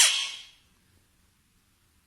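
A talking parrot says "chup" once in a high, arching voice right at the start, dying away within about half a second.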